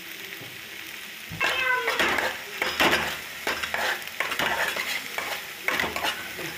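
A spoon stirring and scraping in a pan as ground paste is mixed into cooked beetroot for thoran, with light sizzling. The irregular scrapes and knocks begin about a second in.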